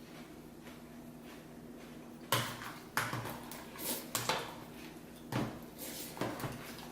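Crunchy cereal being eaten from bowls with spoons: after about two seconds of quiet room background, a run of about seven short, sharp crunches and clatters.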